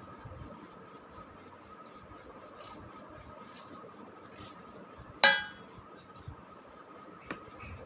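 Bitter gourd being scraped and peeled by hand in small rasping strokes, with one sharp ringing clink about five seconds in, the loudest sound, and a fainter clink near the end.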